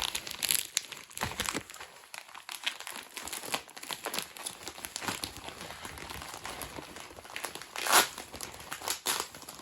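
Packaging being handled and shaken to free the toys inside: irregular crinkling and rustling with quick crackles, and a louder rustle about eight seconds in.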